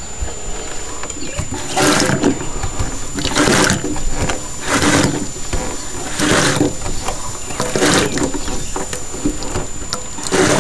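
Hand-operated pump faucet being worked stroke by stroke, each stroke sending a gush of water splashing into a mug in the sink basin; about six strokes, roughly one every second and a half.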